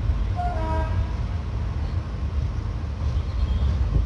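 Diesel locomotive running at speed: a heavy low engine and rail rumble mixed with wind, with a short horn toot about half a second in.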